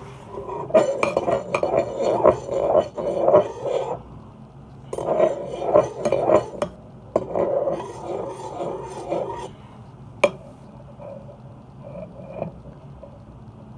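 A utensil being stirred quickly through a thick soap-and-salt slime mixture in a bowl: rapid scraping and clinking against the bowl in three spells, then a single sharp clink about ten seconds in. The mixture is not yet stretchy.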